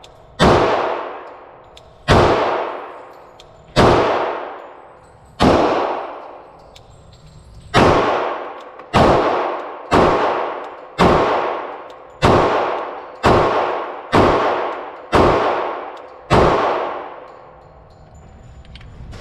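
Thirteen shots from a .45 ACP Glock pistol fired one at a time. The first few come about a second and a half apart, then about one a second. Each shot rings off into a long, fading echo.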